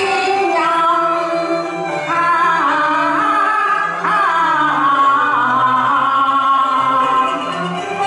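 Cantonese opera song: a woman sings a wavering, ornamented melody over an instrumental accompaniment.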